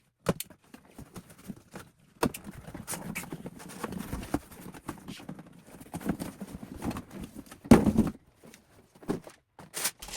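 Handling sounds of a sneaker box being opened and the shoes taken out: rustling with scattered taps and knocks, and one louder thump near the end.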